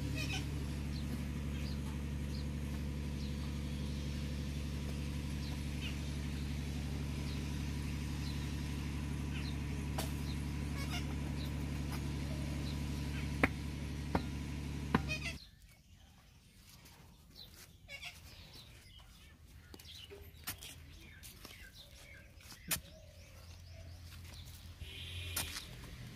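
A machine runs with a steady low hum and cuts off suddenly about fifteen seconds in. After that it is much quieter, with scattered light clicks and a few sharp knocks.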